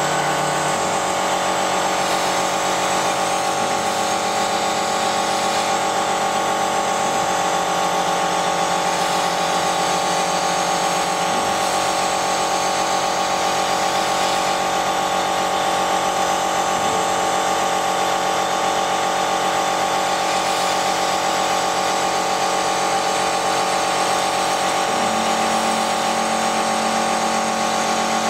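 Chinese CO2 laser cutter running a cutting test program: a steady mechanical hum as the cutting head moves along, with a low tone that shifts several times as the motion changes between cuts.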